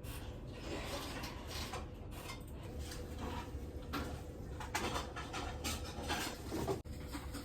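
Handling noise from laptop hardware: irregular light clicks and scrapes of small plastic and metal parts over a steady low hum.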